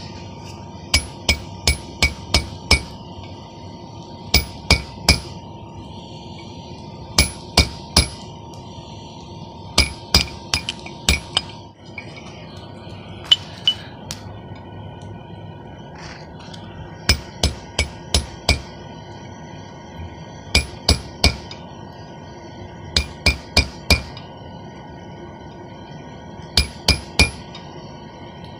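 Hammer striking a hand-held chisel on a red-hot steel bar, in short bursts of three to six quick, ringing metal-on-metal blows with pauses between bursts.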